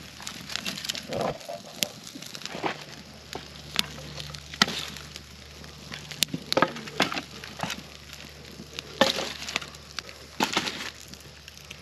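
Wood campfire crackling and popping with many scattered sharp snaps, and now and then a knock of split kindling sticks being laid on the fire.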